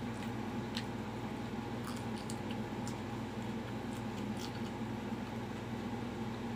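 A person chewing breaded fried chicken with short, faint mouth clicks and smacks, including a finger lick about four seconds in, over a steady background hum.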